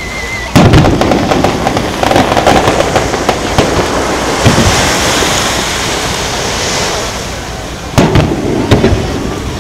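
Aerial fireworks shells bursting. A warbling whistle breaks off in a loud bang about half a second in, followed by crackling for a few seconds and then a hissing crackle. Two more bangs come near the end.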